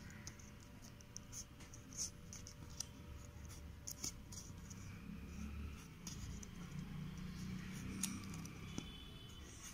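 Faint scratching of a green felt-tip sketch pen drawing short strokes on a small white paper flower, with a few light clicks.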